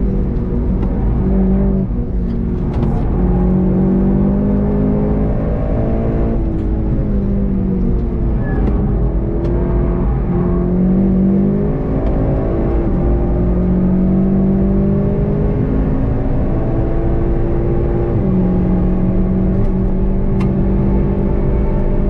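Golf GTI TCR's turbocharged 2.0-litre four-cylinder (EA888) heard from inside the cabin, running hard under load. Its note climbs and drops in steps as the DSG gearbox shifts, slowing through a corner and then pulling strongly up to high speed, over constant tyre and road rumble.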